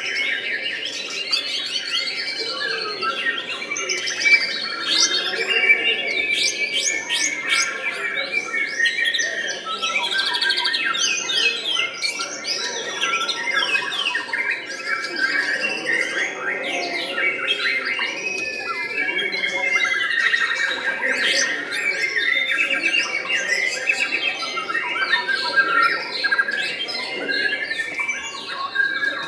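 White-rumped shamas (murai batu) singing continuously: a dense, unbroken stream of rapid chirps, trills and gliding whistles, several birds' songs overlapping.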